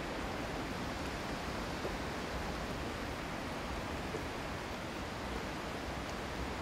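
Steady rushing noise of flowing river water, mixed with wind, that holds even throughout with no distinct events.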